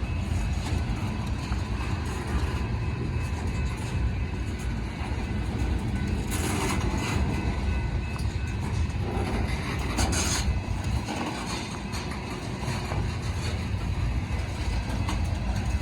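BNSF freight train running, a heavy steady low rumble with wheel and rail noise, and two brief hissing surges about six and ten seconds in.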